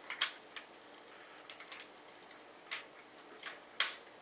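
Scattered small clicks and taps of hard parts being handled as a liquid CPU cooler's pump block, tubing and mounting bracket are worked into place inside a computer case, with the sharpest click near the end.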